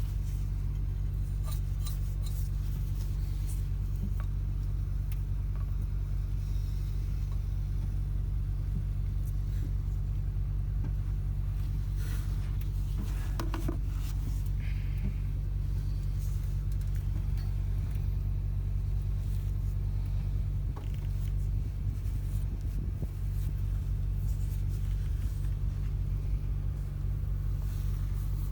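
A truck engine idling steadily, with a few light clicks and knocks of hand work on top.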